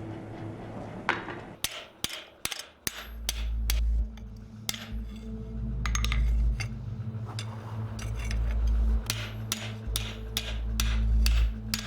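Hand hammer blows on steel at an anvil, dishing a sword guard into a cup, struck irregularly about twice a second, each with a short ring. Background music with a deep steady bass comes in about three seconds in.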